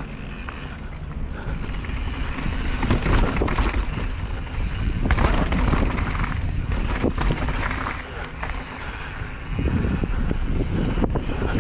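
Mountain bike riding fast down a dirt and rock trail, with wind buffeting the camera microphone as a steady low rumble. Tyres roll over dirt and rock, and the bike knocks and rattles over the bumps.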